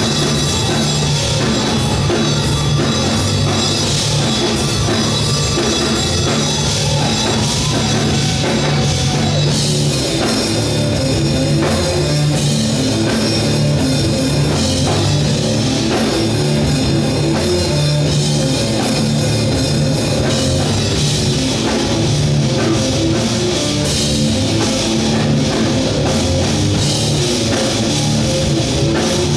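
Rock band playing live: electric guitars and a drum kit keeping a steady, loud rhythm.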